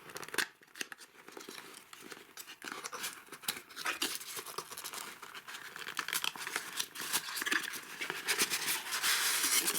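Packaging rustling and crinkling as a model railway signal box is unboxed, with many small irregular clicks and taps, busiest near the end.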